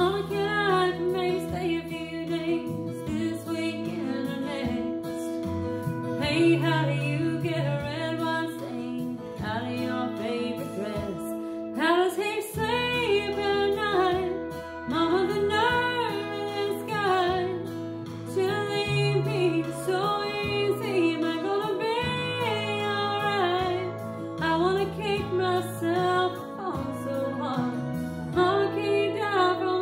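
A woman singing a slow country ballad over instrumental accompaniment with sustained notes.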